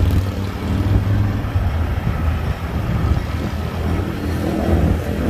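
Semi truck's diesel engine idling close by: a steady low rumble.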